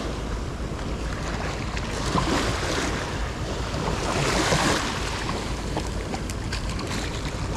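Sea waves washing onto the shore, the surf swelling about two seconds in and again about four seconds in, with wind rumbling on the microphone.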